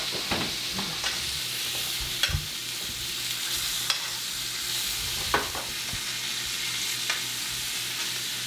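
Steak frying in a hot pan, a steady sizzle, with a few sharp clicks scattered through it.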